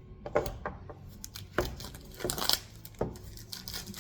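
Hands handling a cigar's packaging and wooden box: a handful of sharp knocks and clicks with rustling in between.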